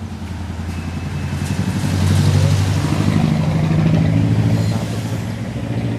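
Car engine running steadily, growing somewhat louder through the middle and easing back near the end.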